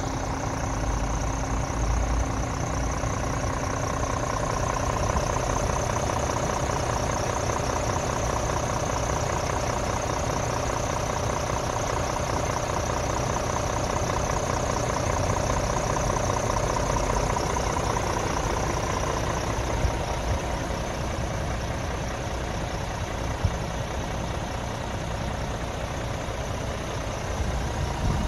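Scania R450 tractor unit's 13-litre straight-six diesel idling steadily, with a couple of brief clicks in the last third.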